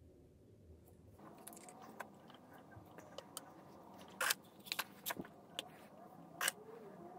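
White vinegar glugging out of a plastic bottle and splashing onto a rusty steel billhook blade lying on a plastic sheet, for a rust-removing vinegar soak. The pouring starts about a second in, and sharp crackles of crinkling plastic cut in several times, the loudest ones near the middle and towards the end.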